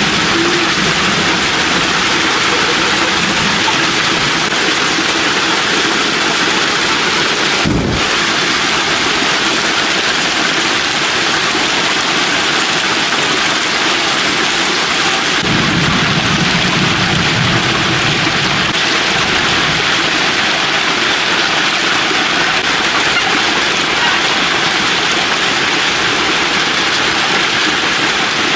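Heavy rain falling steadily, a dense, even hiss. There is a brief thump about a quarter of the way in and a low rumble for a few seconds past the middle.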